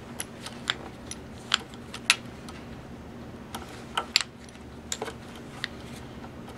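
Small, irregular metallic clicks of an Allen wrench turning in the lower needle-clamp screw of a serger as the screw is unscrewed.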